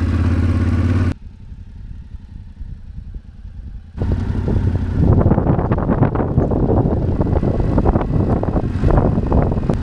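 Yamaha Ténéré 700's 689 cc parallel-twin engine running under way on a dirt track. It drops to a much quieter low rumble about a second in, then comes back loud and rough at about four seconds, with crackling noise over it.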